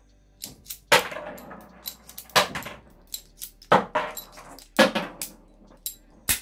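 King Arms Single Action Army airsoft revolver being unloaded at half cock: its shells are pushed out of the cylinder one by one, a series of sharp metallic clicks and clinks, roughly one a second, some with a short ring, the sharpest near the end.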